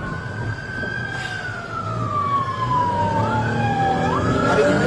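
Police car siren wailing: a quick rise in pitch, a slow fall over about three seconds, then a quick rise again near the end, over a running vehicle engine.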